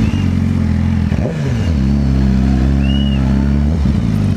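Motorcycle engine running while riding, heard on board. About a second in its pitch drops and comes back up, as at a gear change or a brief roll-off of the throttle, then holds steady.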